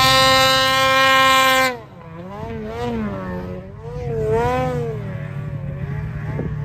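Snowmobile engine held at high revs with a steady whine, cutting off sharply about two seconds in. It is followed by revs that rise and fall as the sleds work through deep powder.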